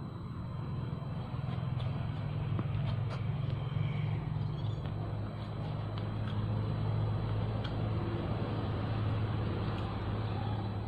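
A steady low motor hum at a constant pitch, with a few faint clicks over it.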